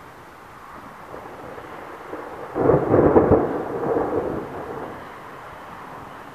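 A peal of thunder: a sudden loud rumble about two and a half seconds in that fades away over the next two seconds, over a steady background hiss.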